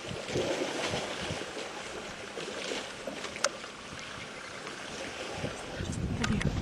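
Water sloshing and splashing in a waterhole, with wind buffeting the microphone and growing louder near the end. A few sharp clicks come about three and a half seconds in and again near the end.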